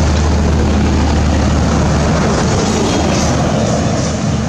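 Steady low hum of a motor vehicle engine running close by, under a wash of outdoor noise; the hum is strongest for the first two seconds and then eases off.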